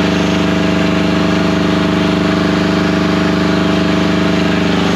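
Kubota engine of a homemade DC generator running steadily at high revs, not yet loaded by its alternator.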